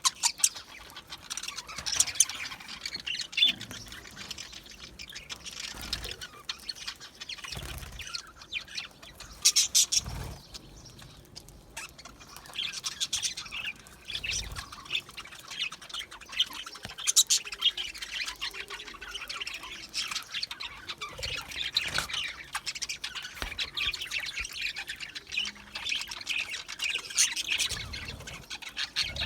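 A group of budgerigars (budgies) chattering and chirping continuously, with short high squawks, and a few soft thumps here and there.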